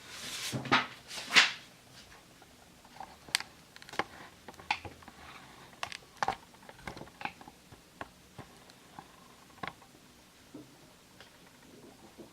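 Handling noises: two loud rustling swishes in the first second and a half, then scattered light clicks and taps, typical of sneakers and their packaging being handled by hand.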